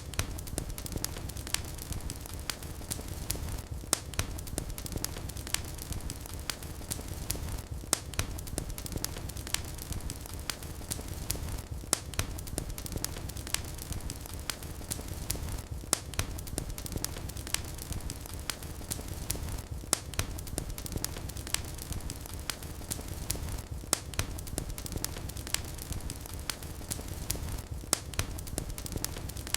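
Fireplace fire crackling: a low steady rumble of flames under frequent sharp crackles and pops, the louder pops recurring about every four seconds.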